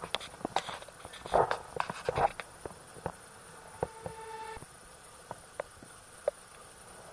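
Faint, irregular footsteps and knocks on a wooden deck, a cluster of louder ones in the first two seconds and scattered single clicks after. A short, steady high tone sounds briefly about halfway through.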